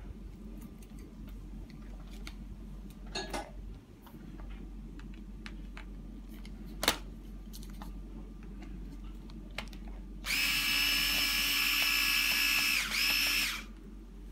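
Cordless drill-driver backing out a screw, running at a steady pitch for about three seconds near the end, with a brief catch before a short final burst. A few sharp clicks come earlier.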